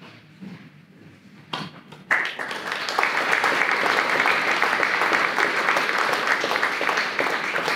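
Audience applause, starting about two seconds in and quickly building to steady clapping.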